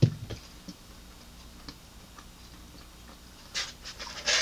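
Faint wet chewing and mouth clicks from someone eating fried chicken wings, after a brief low thump at the start. Near the end, crisp crackling as fingers pull at a breaded fried wing in a foam takeout container.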